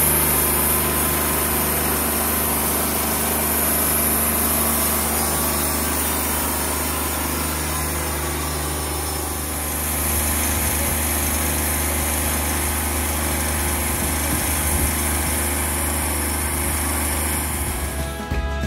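Wood-Mizer band sawmill running: its engine drones steadily under a constant high hiss, easing briefly about nine seconds in before carrying on.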